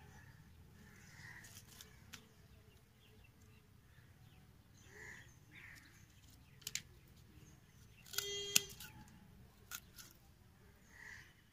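Hand pruning shears snipping through soft tomato stems: a few sharp clicks in the second half. A short buzzy tone comes just before the loudest snap, about eight seconds in.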